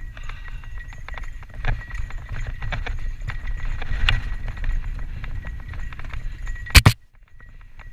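Santa Cruz Tallboy LTc full-suspension mountain bike descending rough dirt singletrack: a steady clatter of knocks and rattles over a low rumble of tyres and air. Near the end comes a loud double clunk, after which the bike goes briefly quieter.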